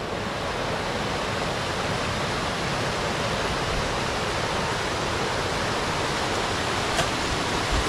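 Steady rush of flowing water from a mountain stream.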